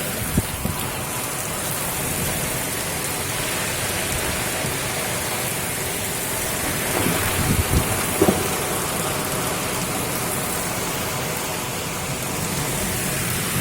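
Heavy rain falling in strong wind, a steady rushing hiss, with a few low thumps about seven to eight seconds in.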